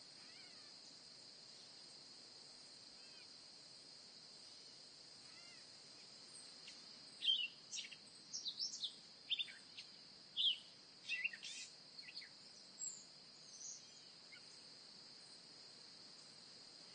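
Steady high drone of a cricket chorus. From about six seconds in to about fourteen, a run of short, sharp animal chirps, many falling in pitch, sounds over it. The loudest come about seven and ten seconds in.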